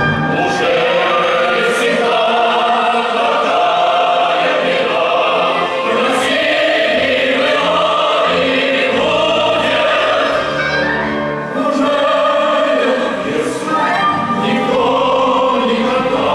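Stage cast singing together in chorus, accompanied by a symphony orchestra, in the finale of a musical.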